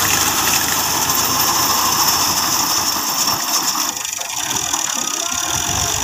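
Fiat 480 tractor's three-cylinder diesel engine running steadily under load while its front-mounted reaper cuts standing wheat, with a continuous mechanical clatter from the reaper's reciprocating cutter bar.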